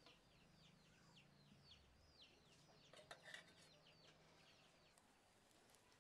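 Faint chickens calling nearby: a quick run of high, falling peeps, several a second, that thins out after about three seconds. A few light clicks sound about three seconds in.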